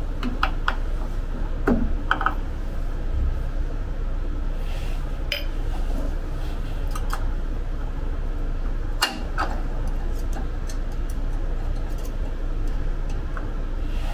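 Scattered light metallic clicks and clinks as the wheelchair's front caster fork parts are handled and fitted into the steel caster housing, over a steady low hum.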